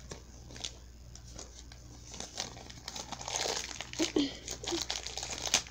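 Crinkling and tearing of a small toy's wrapper being pulled open by hand; the crackling grows busier about two seconds in.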